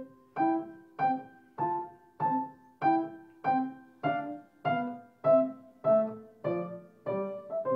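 Piano playing a steady run of chords, a little under two a second, each dying away before the next: a moderato tempo.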